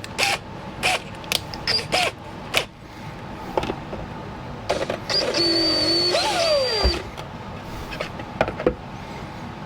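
Cordless drill runs for about two seconds with a high whine, then winds down in falling pitch as the trigger is let go, while drilling a hole in a 3D-printed plastic cover. Before it come a few light clicks and knocks of handling the drill and part.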